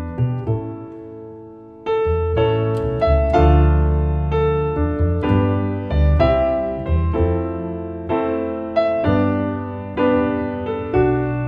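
A grand piano and a plucked double bass playing a slow tune together, the bass giving low notes under the piano's chords and melody.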